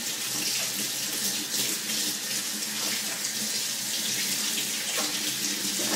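Kitchen faucet running steadily into a sink, the stream splashing over hands being scrubbed during handwashing.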